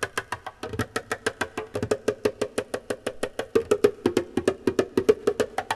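Percussion music: a quick, even run of sharp strokes, about eight a second.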